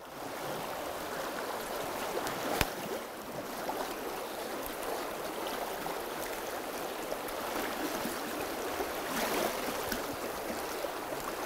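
Shallow river running over rocks in a riffle, a steady rush of water, with one sharp click about two and a half seconds in.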